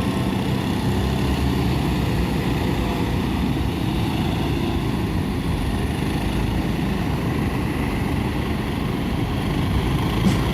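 Ocean surf breaking on a beach: a steady, loud, low rumble.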